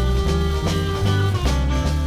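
Electric blues band music: bass notes and drums keeping a steady beat about three strokes a second, with held guitar or harmonica tones above.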